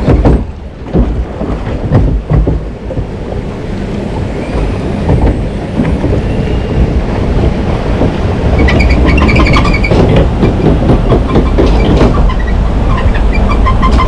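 Log flume ride machinery running under the rider's log boat: a steady low rumble with knocks in the first couple of seconds, then a fast, even clattering from about halfway.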